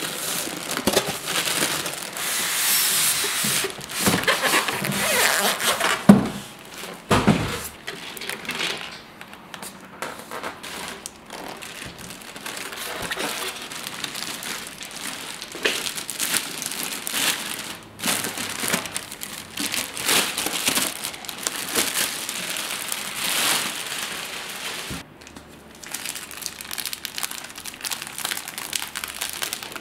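Packaging crinkling and rustling as it is handled, with scattered clicks and a sharp knock about six seconds in.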